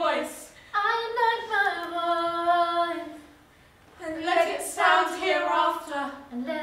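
A woman singing alone without accompaniment, two long drawn-out phrases with a short pause of about a second between them.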